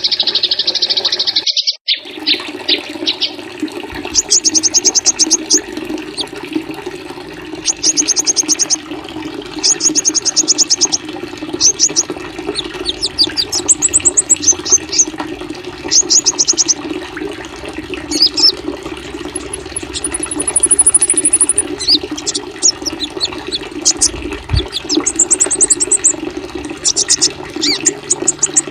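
Small songbirds' high chirps and rapid trills, repeating in short phrases every second or two, over a steady rush of running water. The sound cuts out briefly about two seconds in.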